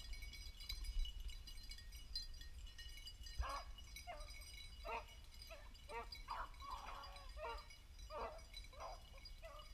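Beagles baying while running a rabbit: faint, with a string of about ten short barks starting about three and a half seconds in.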